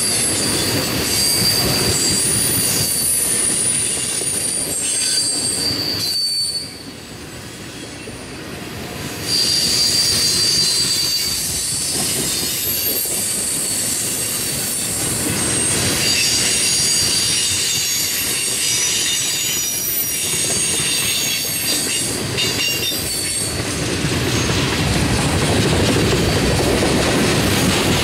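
Freight train of loaded oil tank cars rolling past: a steady rumble and rattle of steel wheels on rail, with high-pitched wheel squeal coming and going. The sound drops for a couple of seconds about seven seconds in, then returns.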